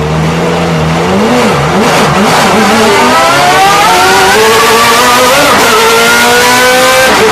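BMW M3 GTR race car's naturally aspirated P60B40 V8, heard from the cockpit. The engine pitch wavers down and up a few times, then climbs steadily under acceleration, dipping briefly about five and a half seconds in and dropping again near the end as the gears change.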